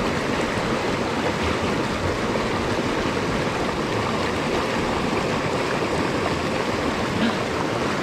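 Mountain stream water rushing over rocks, a steady even flow.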